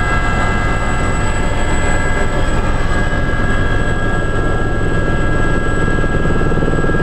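Aérospatiale Gazelle helicopter in flight: the main rotor blades beat steadily and fast, with steady high whines running over them.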